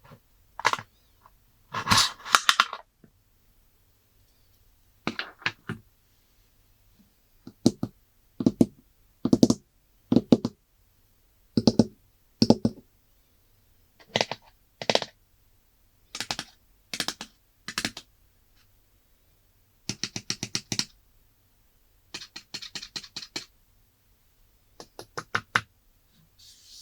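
Hands handling a phone box and its packaging: bursts of quick taps and clicks with short silent pauses between them. A few of the bursts are rapid runs of tapping, about two thirds of the way through and near the end.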